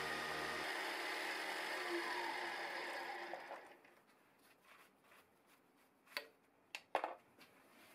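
Milling machine running, its end mill skimming the top of an aluminium fixture flat. A low hum drops out under a second in, and the rest of the machining sound fades out about three and a half seconds in. A few faint clicks follow.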